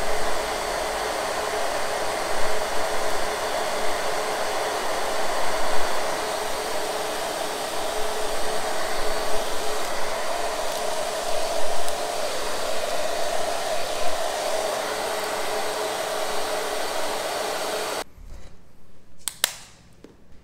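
Hair dryer blowing on its low setting, a steady rush of air with a hum, aimed at hair being styled. It switches off about two seconds before the end, leaving a couple of sharp clicks.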